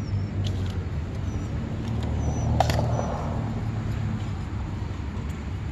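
Steady low rumble of road traffic that swells slightly a couple of seconds in, with a sharp plastic click about two and a half seconds in as the chain guide is worked over the motorcycle chain, and a few faint high chirps.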